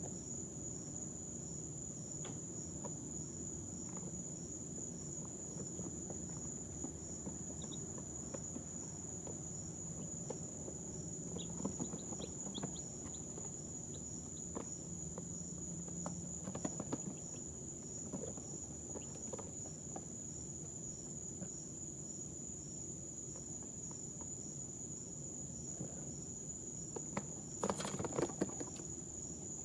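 Two-day-old chicks shifting and scratching in their bedding: faint scattered clicks and rustles, with a few very short soft peeps, over a steady high-pitched whine. Near the end the scratching and scuffling grows louder for a couple of seconds.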